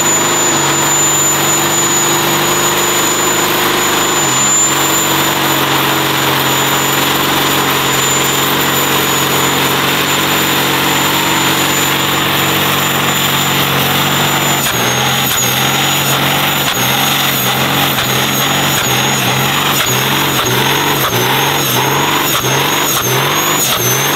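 Turbocharged Cummins diesel in a Mustang held at high revs during a burnout, with a steady high turbo whistle over the engine. Past the middle the revs begin to pulse up and down in a quick, even rhythm, and the whistle wavers with them.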